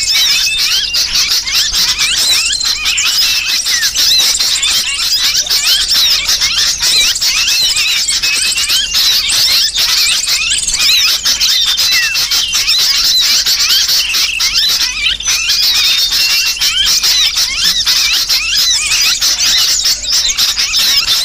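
Dense, unbroken chorus of small birds' high chirps and squeals, a bird-lure recording that mixes the agitated alarm calls of small birds with the distress cries of a trapped sooty-headed bulbul.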